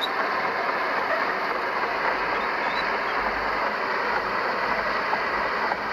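Heavy earthmoving machinery running: a steady engine and mechanical clatter with a few faint clicks.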